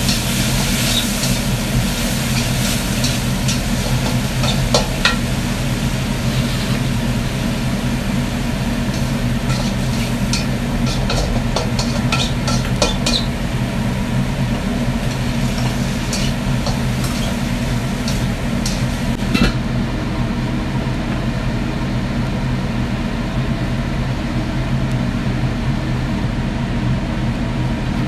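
Stir-frying in a wok on a gas stove: food sizzling, with a metal spatula scraping and tapping against the wok now and then, most often around the middle, over a steady low hum from the kitchen range hood fan.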